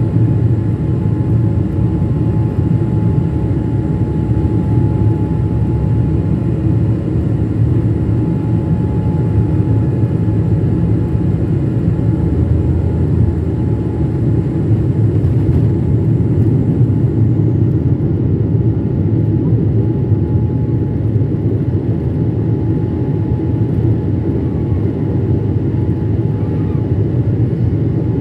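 Boeing 777 turbofan engines at takeoff thrust, heard from inside the cabin: a loud, steady rumble with a steady whine during the takeoff roll and into the climb. A faint high whine fades out about two-thirds of the way through.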